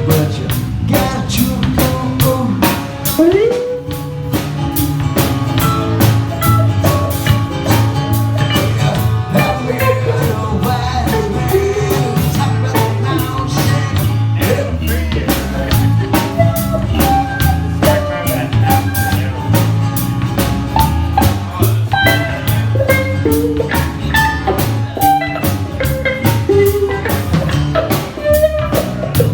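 A band playing with a steady drum-kit beat, bass and other instruments.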